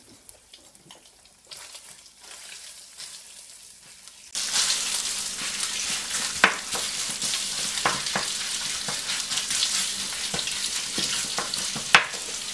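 Sausage meat sizzling as it fries in hot olive oil in a stainless steel pot, starting loudly about four seconds in as it is stirred and broken up with a spoon. The spoon knocks against the pot now and then.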